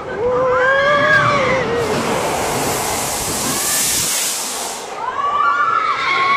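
Riders on a water slide screaming and whooping in long, gliding cries. A loud rush of spraying water takes over for about three seconds in the middle, and the screams come back near the end.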